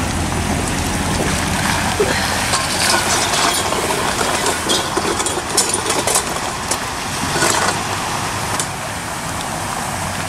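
A Chevrolet Silverado 1500HD pickup's engine running as the truck pulls away, its tyres hissing and splashing through water on a flooded road.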